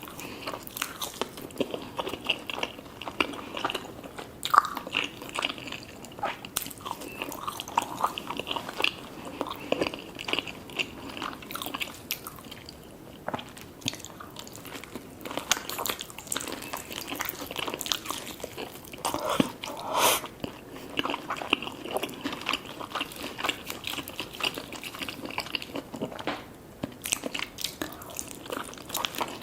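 Crunching bites and chewing of crispy fried food, an irregular run of crackly crunches and wet mouth clicks.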